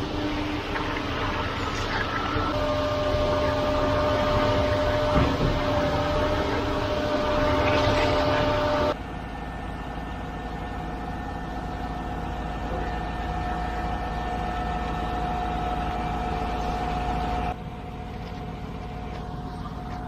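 Ready-mix concrete mixer truck's diesel engine running steadily with its drum turning as it discharges concrete down the chute, a steady whine over the engine. The sound drops abruptly to a quieter steady run about nine seconds in and shifts again near the end.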